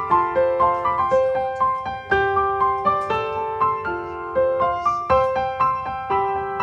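Background music: a gentle piano melody of sustained notes in an even rhythm.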